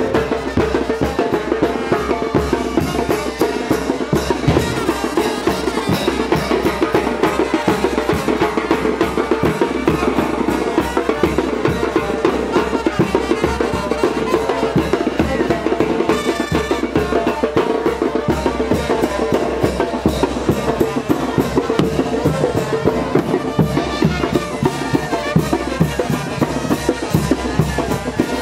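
Live wind band playing the brinco music for the Chinelo dance, with a fast, steady drum and cymbal beat under a sustained band note.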